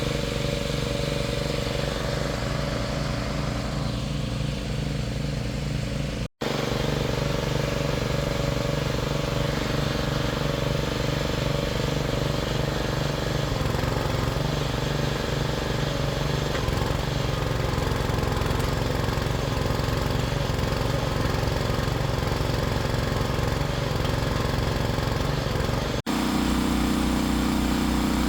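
Predator 212 single-cylinder engine running steadily, driving the drilling rig's hydraulics. The sound breaks off and resumes at abrupt cuts about 6 seconds and 26 seconds in.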